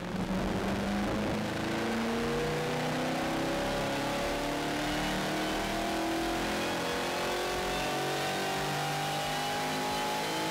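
A C7 Corvette Stingray's 6.2-litre LT1 V8 runs at full throttle on a chassis dyno pull, its pitch climbing steadily as the revs rise. It breathes through a Hooker Blackheart catback exhaust with straight-through mufflers.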